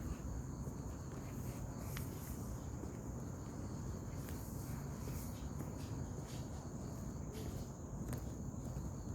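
Crickets trilling steadily at a high pitch, over a low rumbling noise with a few faint clicks.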